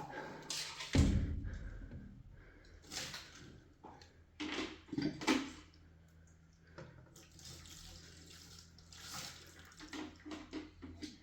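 Intermittent splashing and pouring of water with handling noises, and a heavy thump about a second in.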